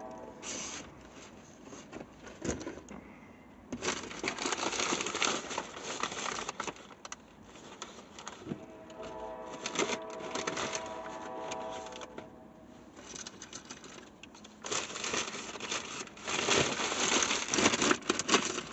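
Bursts of crackling and rustling close to the microphone, full of small clicks, coming and going several times and loudest near the end.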